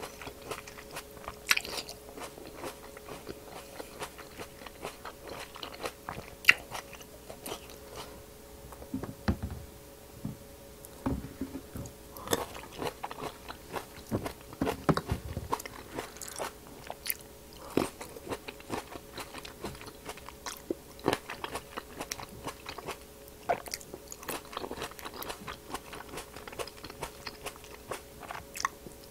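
Close-miked biting and chewing of firm, crisp grapes: many short crunches and wet pops as the grapes are bitten through and chewed.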